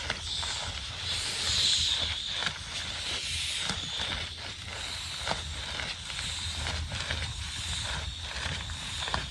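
Small wood campfire crackling, with scattered sharp pops, over a steady high-pitched insect drone that swells briefly about a second or two in.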